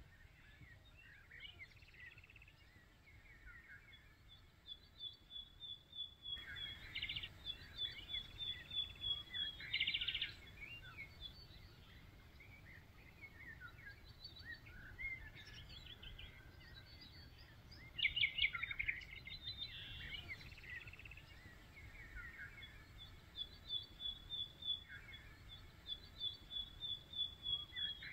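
Several birds singing outdoors: many short chirps and rapid high trills coming in bursts, over a faint steady background noise.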